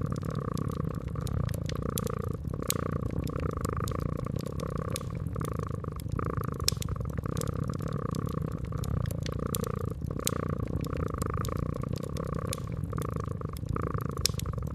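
Domestic cat purring steadily, the purr swelling and fading about once a second, over a wood fire crackling with sharp, irregular pops.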